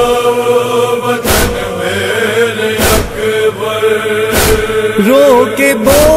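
Nauha lament chorus: male voices chanting on long held notes over a heavy beat that falls about every second and a half, in the manner of matam chest-beating. About five seconds in, a solo voice enters with a wavering, ornamented melody.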